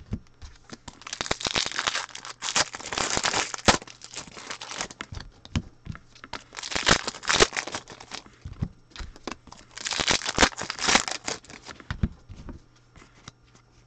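Foil wrappers of football card packs crinkling and being torn open in several irregular bursts, with short clicks of cards being handled in between.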